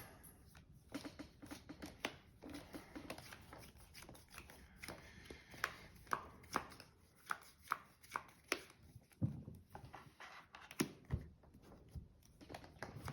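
Trading cards being handled on a table: an irregular run of light clicks, snaps and taps as cards are drawn, flicked and set down, with a few sharper ones.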